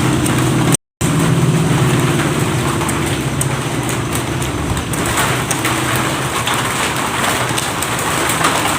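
A motor running steadily with a low hum, over a constant hiss; the sound cuts out completely for a moment about a second in.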